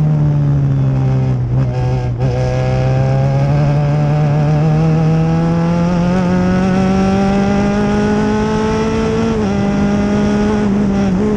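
Open-wheel formula race car engine heard on board at full load. The revs sag briefly, then climb steadily for about seven seconds under acceleration. They drop suddenly near the end at a gear change. Wind and road noise run underneath.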